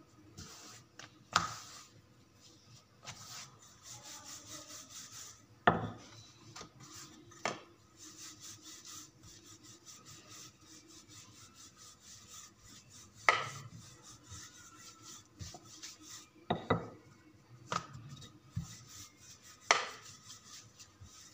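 Wooden rolling pin rolling out a potato-stuffed paratha on a marble counter: a steady soft rubbing, broken by a sharp knock every few seconds.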